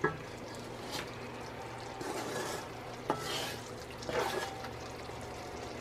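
Wooden spatula stirring a thick, simmering sugar syrup in an aluminum pot: a couple of light knocks of wood on the pot, then three scraping swishes. The syrup is boiling down nearly to thread stage.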